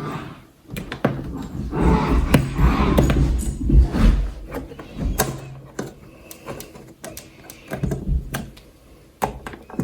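Handling noises from a small suction cup being worked on an iMac's front glass panel to pull it off: scattered clicks and knocks, with a busier stretch of rubbing and low thumps in the first half.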